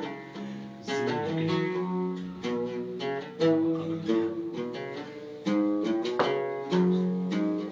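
Oud played solo, a run of plucked notes forming an instrumental interlude between sung verses.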